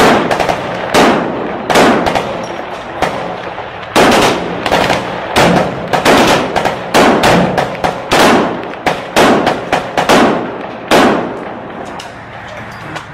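Rifle fire close by: about twenty sharp shots and short strings of shots at irregular intervals, thinning out and stopping near the end. A low steady drone runs beneath.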